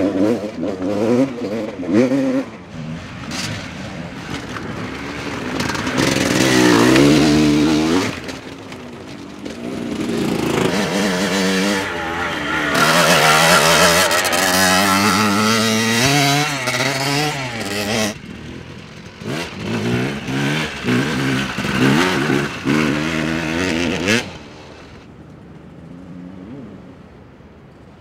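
Vintage enduro dirt bike engines revving hard as the bikes ride through, the pitch rising and falling again and again with throttle and gear changes. About three-quarters of the way in the sound drops to a much quieter engine.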